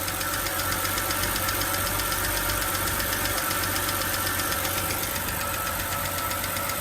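BMW 328i's 3.0-litre inline-six idling steadily. It runs smoothly with no shaking now that a new ignition coil has cured the misfire.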